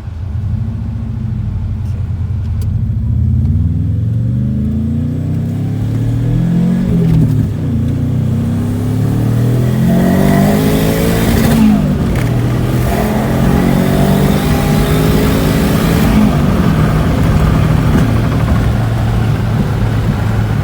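Bolt-on turbocharged Proton Wira 4G15 inline-four accelerating hard through the gears: the engine note climbs steadily, falls sharply at an upshift, and climbs again, three times over.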